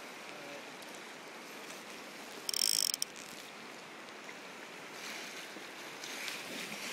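Steady rush of the Klutina River's current, with one brief high buzz about two and a half seconds in.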